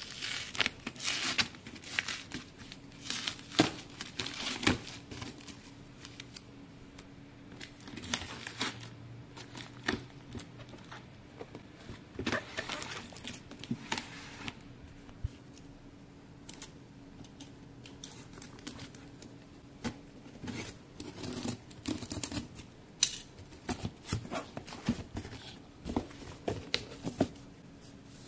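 Clear packing tape and a paper-backed FRAGILE sticker being peeled and torn off a cardboard box, in irregular crackling rips and clicks. Near the end the box's cardboard flaps are pulled open.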